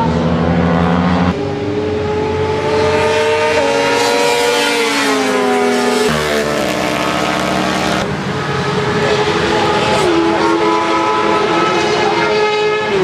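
Motorcycle engines running at high revs on a racetrack, more than one at a time, their pitch holding, sliding down and jumping as they pass and shift gears.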